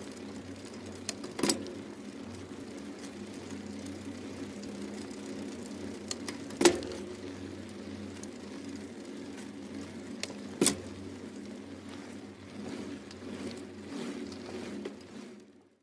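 Steady background hum that fades in and fades out near the end, broken by three sharp clicks spaced about four seconds apart.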